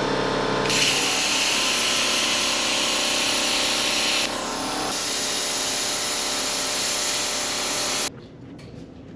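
Power tool cutting through the steel shell of an old fuel tank. A steady run with a loud hiss of cutting that starts about a second in, breaks off briefly around four seconds and resumes, then stops abruptly near the end.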